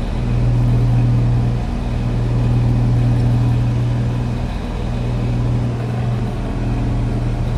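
Ducane heat pump outdoor unit running in heat mode with a loud, steady low hum. The cabinet is vibrating a lot and visibly shaking.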